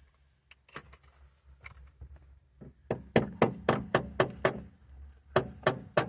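A series of sharp knocks: two single ones, then a quick run of about four a second, then another short cluster near the end.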